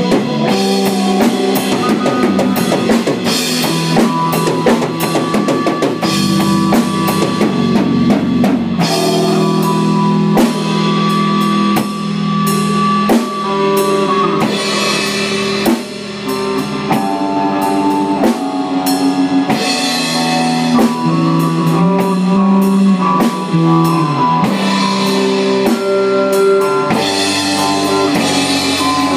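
A band jamming rock music live on drum kit and guitar, the drums playing steadily throughout.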